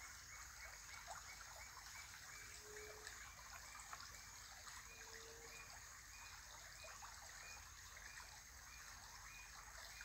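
Near silence: faint outdoor ambience with a steady high hiss and a faint regular ticking about three times a second, and two brief low hums a few seconds apart.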